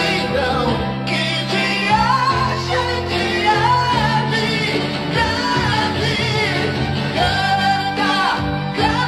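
Recorded pop ballad playing: full band backing with a steady bass and a sung melody line with vibrato.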